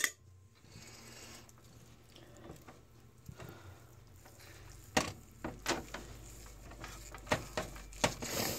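Carving knife cutting through a juicy roast turkey breast: faint, wet slicing sounds, with a sharp knock right at the start and several sharp clicks and knocks over the last few seconds.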